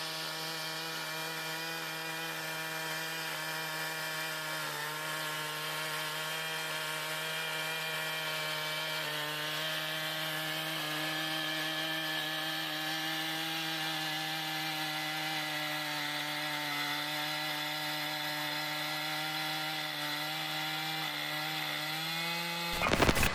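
Chainsaw running steadily at high revs while cutting through a large log, its pitch wavering only slightly. Near the end it is cut off by a brief, loud burst of noise.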